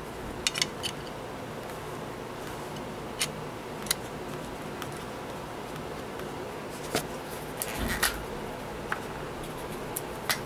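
Scattered small clicks and taps as the die-cast metal body of a toy van is handled and set down among its parts, about a dozen in all with a small cluster near the end, over a steady background noise.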